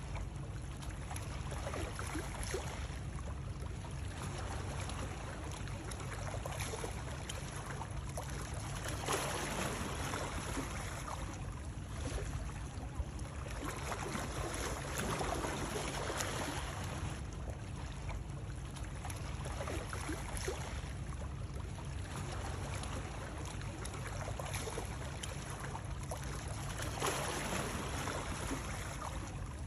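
Continuous running-water noise over a steady low rumble, swelling and easing every few seconds.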